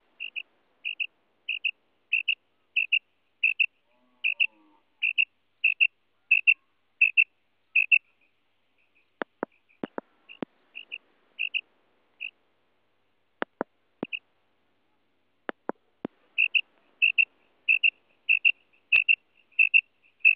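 Female common quail calling, the female's call used as a lure by quail hunters: a steady run of short, high-pitched notes, about three every two seconds. The series breaks off for several seconds in the middle, where a few sharp clicks sound, then resumes.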